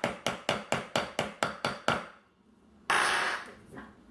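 A hammer striking a steel eyelet setter in quick, even taps, about four a second, setting a quarter-inch eyelet into leather over its seat on a granite slab; the taps stop about two seconds in. A short scraping noise follows about a second later.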